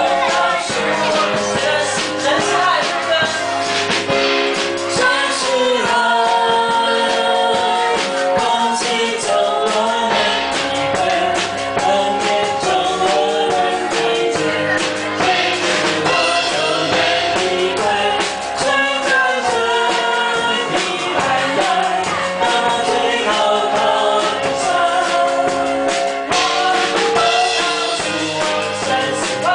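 A group singing an upbeat worship song into handheld microphones, amplified over backing music with a steady beat.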